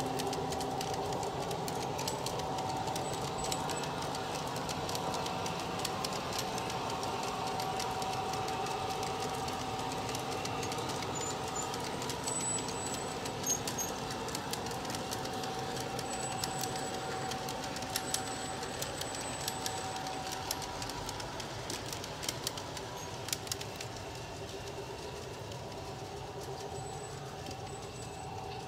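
G scale model freight train rolling past on garden-railway track: the cars' wheels run with a steady hum and irregular clicks over the rail joints, slowly fading as the train moves away.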